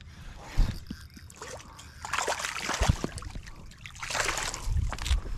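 Splashing in shallow water as a hooked striped bass thrashes at the shoreline while it is reeled in. The splashing comes in two bursts, with a few dull thumps.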